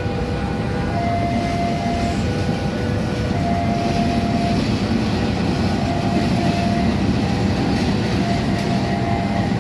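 CC 206 diesel-electric locomotive passing close by on a shunting move with its coaches: a steady low engine rumble that grows slightly louder about four seconds in as the locomotive nears.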